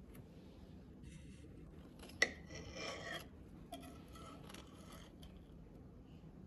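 A metal cake server cutting a slice from a chocolate-glazed bundt cake and scraping against the glass plate beneath: a sharp click about two seconds in, then two spells of rasping scrapes.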